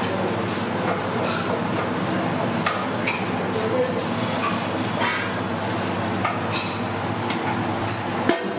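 Newspaper rustling and crumpling as sheets are pressed down over a pot, over a steady low mechanical hum of kitchen equipment. An aluminium lid clanks onto the pot near the end.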